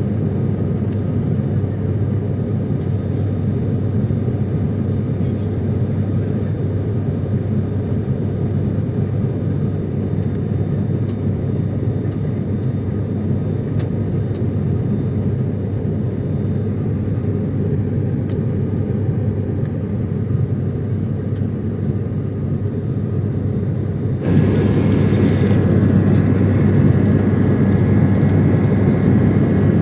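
Steady drone of an airliner's engines and rushing air, heard inside the passenger cabin in cruise. About 24 seconds in it suddenly gets louder, with a thin steady high tone added.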